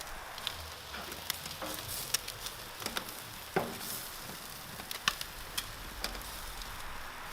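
Marinated chicken wings sizzling on a barbecue grill: a steady hiss with scattered sharp pops and crackles of dripping fat, one louder pop about halfway through.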